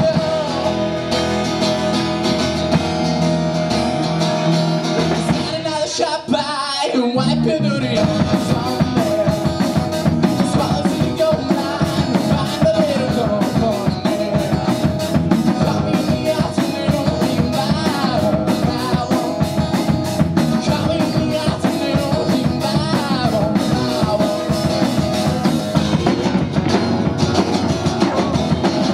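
Live rock song on acoustic guitar and drum kit, with a male voice singing. About six seconds in the music breaks off briefly, then the drums come back in with a busier, driving beat.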